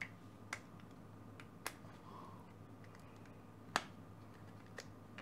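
Half a dozen sharp, irregular plastic clicks as the snap-together case of a plug-in 12 V power supply is pried apart by hand, over a faint steady low hum.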